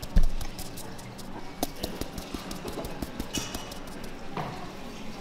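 Kitchen clatter of dishes and utensils: one loud knock about a quarter second in, then scattered light clicks and taps.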